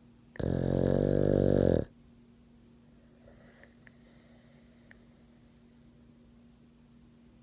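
French bulldog–pug mix snoring in its sleep: one loud snore about half a second in, lasting about a second and a half, followed by several seconds of only faint sound.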